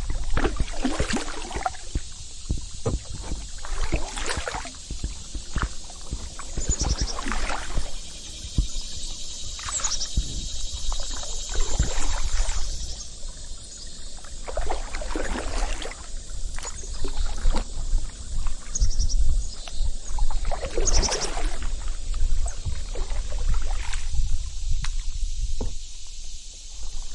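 Canoe paddle strokes dipping and swishing through water every few seconds, over a steady high drone of summer insects, with a few short bird chirps and a low rumble underneath.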